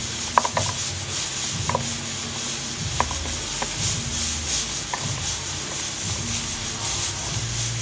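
Knife cutting through scallion stalks held in the hand, a rubbing cut with a few scattered small clicks over a steady hiss.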